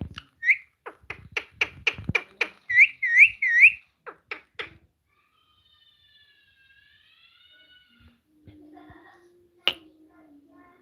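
A pet parrot chirping in short rising-and-falling notes, three in quick succession about three seconds in, among a fast run of sharp clicks. A few faint wavering whistles follow in the middle.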